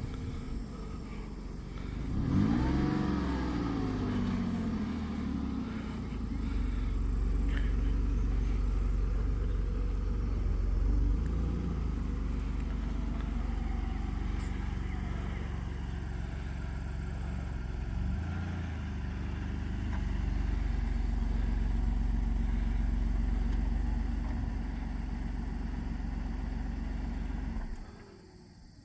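2006 Ford Freestyle's 3.0-litre V6 engine running. It revs up and back down once about two seconds in, then idles steadily.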